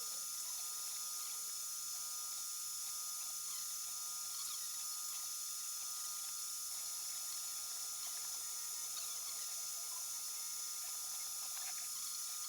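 3D printer's stepper motors running through a print: short whining chirps and brief tones that jump in pitch from move to move, over steady high-pitched whines.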